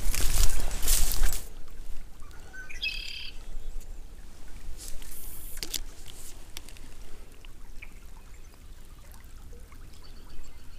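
Footsteps through dry grass and patchy snow for the first second and a half. Then it goes quiet, and a short rising bird call comes about three seconds in.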